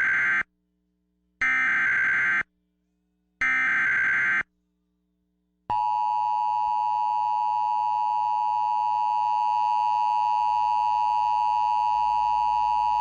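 Emergency Alert System SAME header data tones: three short screeching bursts about two seconds apart, the first already under way. About a second after the last, the EAS two-tone attention signal (853 and 960 Hz) comes in and holds steady.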